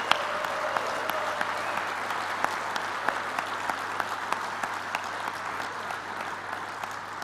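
Audience applauding: many hands clapping steadily, starting to die down near the end.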